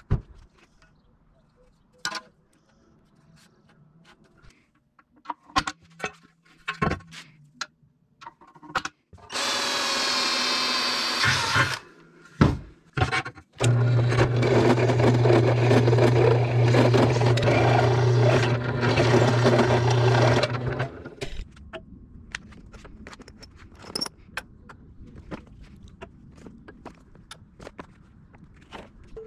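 A power tool runs twice during fabrication of the subframe: a short run of about two seconds, then a longer steady run of about seven seconds with a low motor hum. Scattered clicks and knocks of parts being handled come before, between and after.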